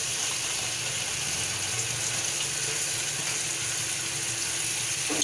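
Steady sizzling hiss from a kadai of hot fried masala as freshly washed slices of ridge gourd are tipped in.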